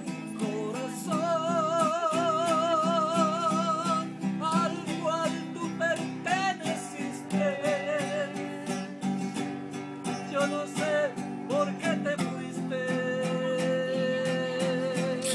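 A man singing with a wide vibrato to his own acoustic guitar, strummed and plucked throughout. He holds a long note near the end.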